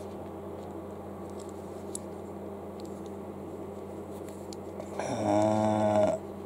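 A steady low background hum, then near the end a man's short low hum from the throat lasting about a second.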